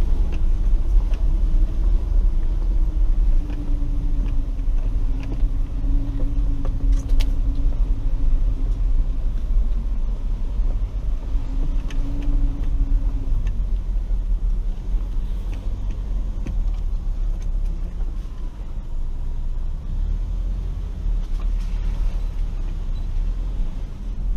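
Ford Ranger FX4 crawling over a rocky off-road trail, heard from inside the cab: a steady low rumble of engine and tyres. A faint hum comes and goes in the first half, and there is a sharp click about seven seconds in.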